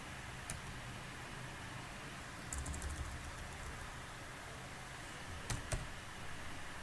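Computer keyboard typing, faint: a single keystroke, then a quick run of several keystrokes about two and a half seconds in, and two more about five and a half seconds in, over a steady faint hiss.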